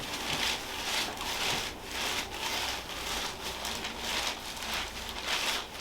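Rubbing and rustling, in uneven strokes that swell and fade, like hands moving over skin and clothing.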